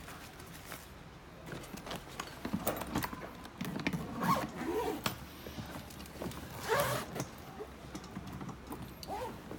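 Handling noise as a power bank is fitted into a suitcase's compartment: rustling, clicks and short squeaky, zipper-like rasps, scattered unevenly.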